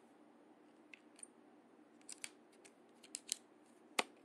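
Light clicks and scrapes of a 35mm film leader being pushed by hand across the rails of an open film camera, in small irregular taps, with a sharper click about four seconds in.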